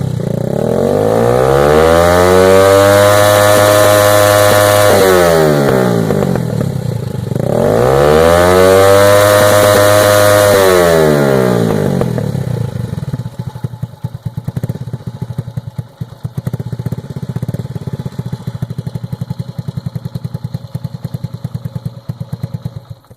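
Honda Dream C100's single-cylinder four-stroke engine breathing through a Roncar Aluminium aftermarket exhaust with a deep note. It is revved up twice, each time held high for a few seconds and then let back down, then runs at low revs with separate, even exhaust pulses.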